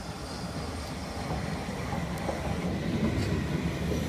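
London Underground S8 stock electric train running into the station and along the platform close by, its rumble growing louder as the carriages pass.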